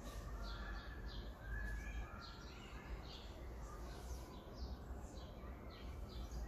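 Small birds chirping, short high chirps about two a second, over a low steady rumble.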